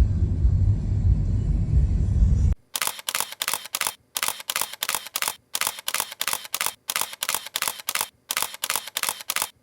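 A low vehicle rumble that cuts off suddenly about two and a half seconds in. Rapid camera shutter clicks follow, about six a second, in short runs with brief silent gaps between them.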